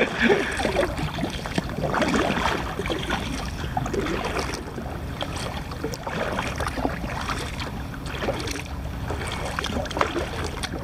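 Water sloshing against a kayak's hull, with wind rumbling on the microphone and scattered light knocks and splashes.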